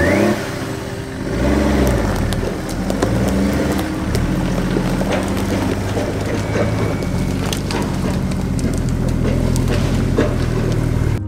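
Nissan Patrol 4x4's engine running at low speed, rising and falling in revs a couple of times about two seconds in, as the truck crawls slowly over rough ground. Scattered sharp clicks and cracks sound throughout.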